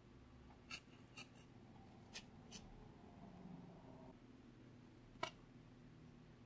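Quiet handling of slime: a few sharp little clicks and pops, three in the first couple of seconds and a louder one about five seconds in.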